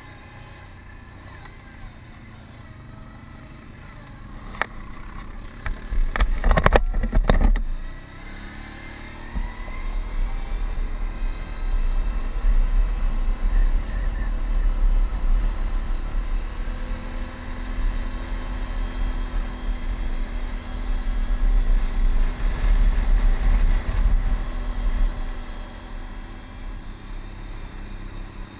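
Can-Am Outlander ATV engine running along a gravel trail, rising in pitch as it speeds up about eight seconds in and then holding steady, under heavy wind rumble on the helmet camera's microphone. A loud burst of knocks and rumble comes about six seconds in.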